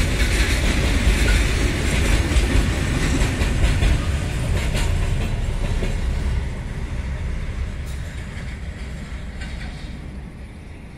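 Container freight train's loaded flat wagons rolling past, wheels clicking over the rail joints. From about six seconds in the sound fades steadily as the tail of the train passes and it moves away.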